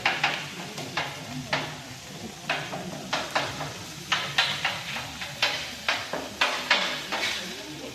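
Food frying in a pan, stirred with a utensil that scrapes against the pan in short irregular strokes, about two or three a second.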